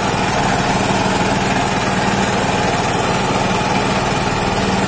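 Small boat's outboard motor running at a steady speed, an even, unchanging drone.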